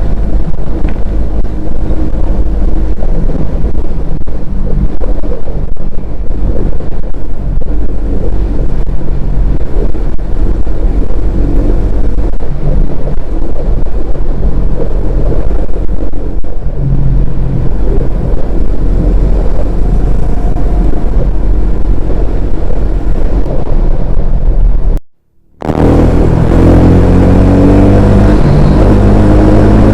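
Bajaj Pulsar N250's 249 cc single-cylinder engine and exhaust running, the revs shifting up and down. After a brief cut-out near the end, the engine note climbs steadily as it accelerates.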